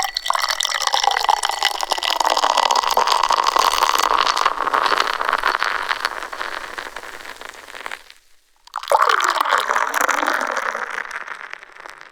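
Beer being poured close-up from a bottle into a glass, splashing and fizzing as the foam builds. The first pour tapers off about eight seconds in. About a second later a second pour starts and fades away near the end.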